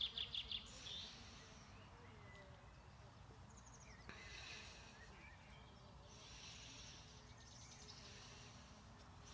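Faint outdoor ambience: birds singing off and on over a low, steady rumble. A quick run of repeated high chirps comes right at the start, and more bird song about four seconds in and again toward the end.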